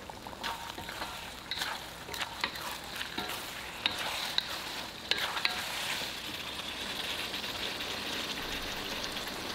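Sauce sizzling in a hot wok while a wooden spatula stirs through the eggplant, with scattered clicks and scrapes of the spatula against the pan in the first half; the stir is working in the cornstarch slurry that thickens the sauce.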